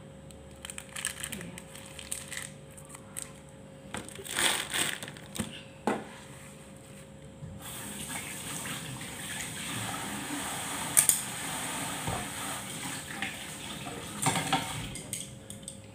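Kitchen tap running into a sink for several seconds, starting about halfway through and stopping shortly before the end. A few knocks and clatters of things being handled come before it.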